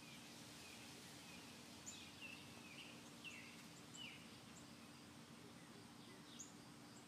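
Faint outdoor ambience with small birds chirping in the distance: several short falling chirps scattered through, over a faint steady hum.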